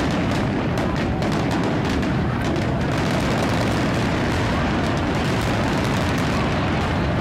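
Fireworks display going off: a dense stream of bangs and crackles over a steady low rumble.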